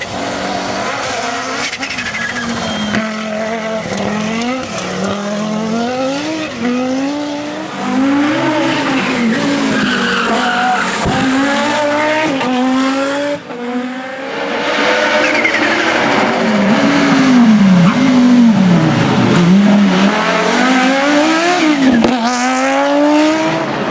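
Audi Sport Quattro S1 E2 rally car's turbocharged five-cylinder engine revving hard, its pitch climbing and dropping again and again through gear changes and lifts. Tyres skid on the loose surface, and the sound briefly dips a little past halfway.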